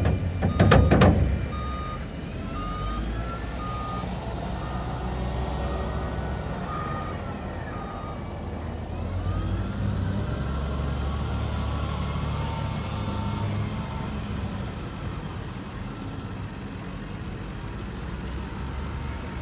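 Wheel loader's diesel engine running as a bucketful of mulch drops into a dump trailer, with a loud rush about a second in. The loader's reversing alarm then beeps steadily for several seconds as it backs away, and the engine revs up about halfway through.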